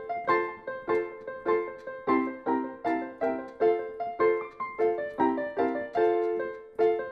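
Background piano music: a steady run of struck notes, about three a second, each fading soon after it sounds.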